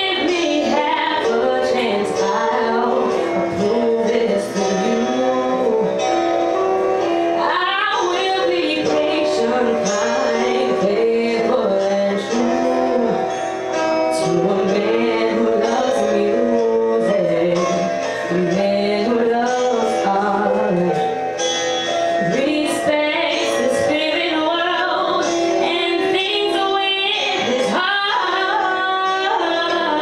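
A woman singing live into a handheld microphone over instrumental accompaniment with long held notes, her voice bending and gliding between pitches.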